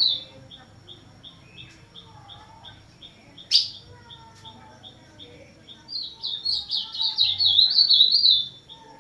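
Caged ultramarine grosbeak (azulão) singing: a loud, fast warbling phrase that ends just at the start, and another that begins about six seconds in and lasts about two and a half seconds. In between runs a steady string of short high chirps, about three a second, broken by one sharp click about three and a half seconds in.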